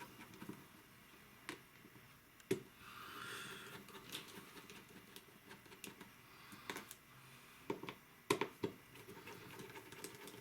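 Small clicks and taps of a precision screwdriver and tiny screws, scattered and irregular, as the back-frame screws of a Samsung Galaxy Note 3 are taken out. There is a short soft rustle of handling about three seconds in.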